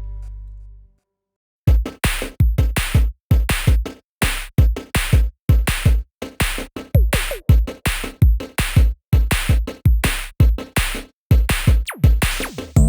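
Background music: a held sound fades out in the first second, then after a brief silence an electronic track starts with a fast, steady drum-machine beat.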